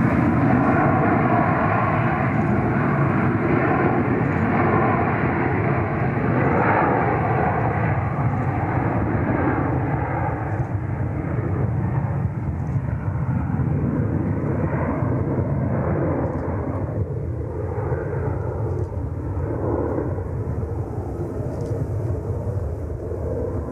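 Airliner engine noise from a plane on or near the runway, a steady rushing sound that slowly fades as it moves away.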